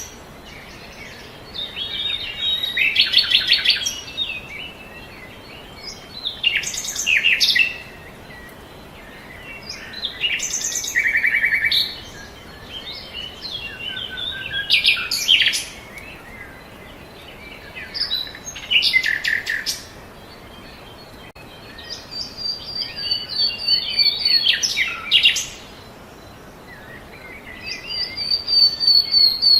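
Songbirds singing: a short burst of varied chirps, trills and whistles comes every three to four seconds over a steady background hiss.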